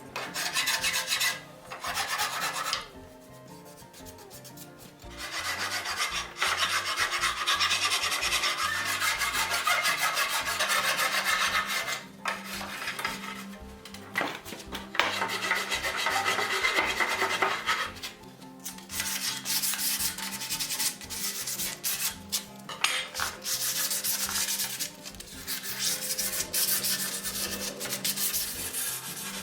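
A wood rasp scraping across wood in repeated working strokes, in long stretches broken by short pauses, as a buggy-body part is shaped by hand.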